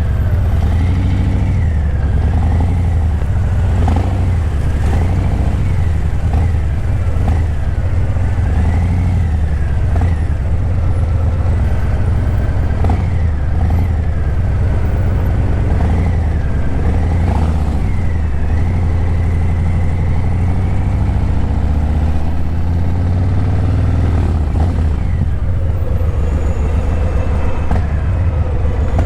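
Harley-Davidson Breakout 117's Milwaukee-Eight 117 V-twin running loud through Vance & Hines Eliminator 300 slip-on mufflers while riding at low speed, a deep steady rumble with the engine note rising and falling as the throttle opens and eases off.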